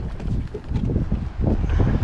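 Wind buffeting the microphone: uneven low rumbling with irregular thumps.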